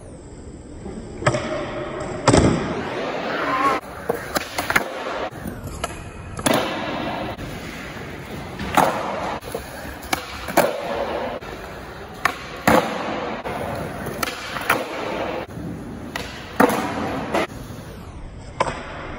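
Skateboards doing flatground tricks on a smooth concrete floor: wheels rolling, broken by about a dozen sharp cracks of tails popping and boards landing.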